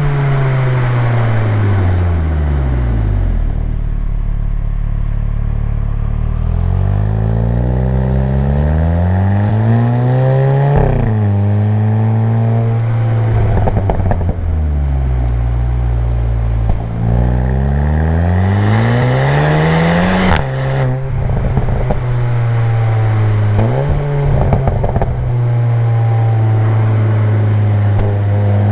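Seat Leon Cupra 290's turbocharged 2.0-litre four-cylinder, on its stock exhaust, driving. The engine note falls at first, then climbs repeatedly under acceleration, dropping suddenly at gear changes about eleven and twenty seconds in, with steady cruising stretches between.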